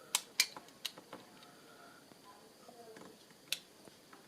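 A few sharp small clicks and taps from handling a small digital wristwatch: four in quick succession in the first second and one more about three and a half seconds in.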